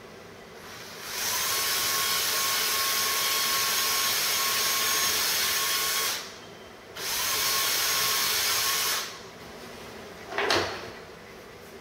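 Handheld power drill boring holes into white oak bullnose flooring, running steadily in two runs with a short pause between. A short, sharp sound comes near the end.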